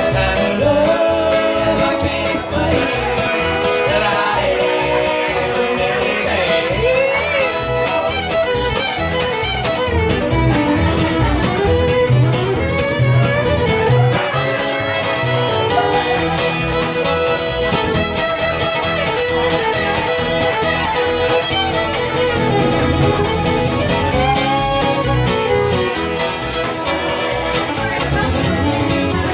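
Bluegrass string band playing an instrumental break: a fiddle carries the melody over strummed acoustic guitar and upright bass.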